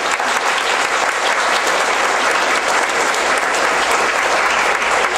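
Seated audience applauding, a steady dense clapping that keeps up throughout.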